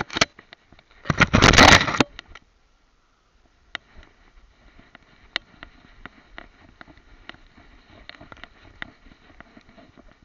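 Twigs and leaves scraping and rustling loudly over a dog-mounted camera as the dog pushes through a bush, for about a second starting a second in. After that, faint rustling with scattered light ticks as the dog moves through long grass.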